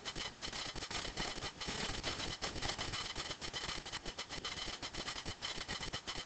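Faint classroom background: a steady room hiss with irregular soft rustles and small clicks.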